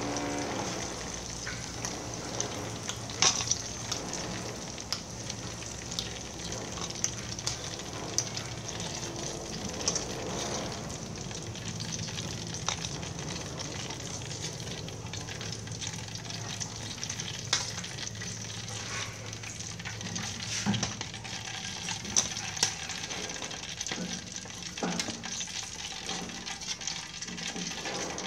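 Sweet potato fries deep-frying in oil in a metal wok: a steady sizzling hiss, with scattered clicks and scrapes of a wire mesh skimmer and spoon against the wok and colander as the fries are scooped out. The sizzling thins out in the last few seconds as the oil empties of fries.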